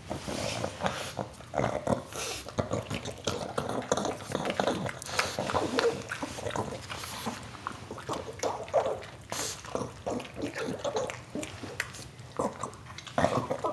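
A pug eating a treat noisily: fast, irregular chewing and smacking sounds with a few short grunts.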